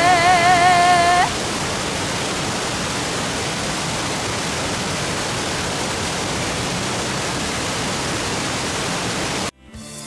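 Steady rushing of a mountain waterfall. About a second in, the held, wavering last note of a song ends abruptly; the water sound cuts off suddenly near the end as plucked notes of music begin.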